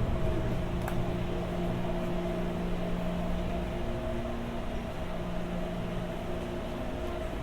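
Inside a Taipei Metro Siemens C321 train: a steady electrical hum with several constant tones over a low rumble that eases off a little in the first few seconds.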